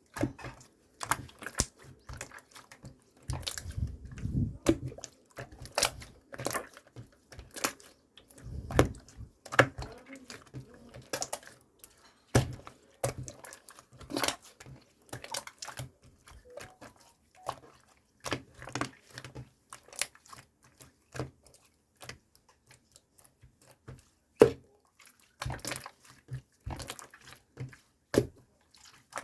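Irregular light clicks and taps of small hard objects being handled, with a couple of low, dull thumps a few seconds in.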